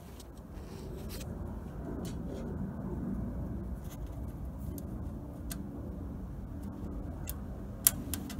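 A steel screw being turned by hand into a freshly drilled hole in a pellet grill's sheet-metal lid, to tap threads: faint scattered clicks and scrapes, with one sharper click near the end, over a low steady rumble.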